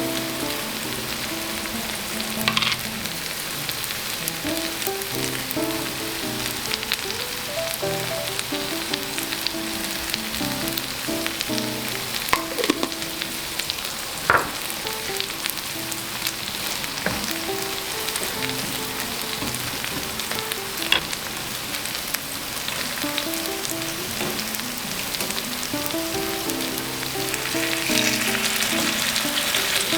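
Food sizzling and crackling in a frying pan, with a few sharp knocks spread through.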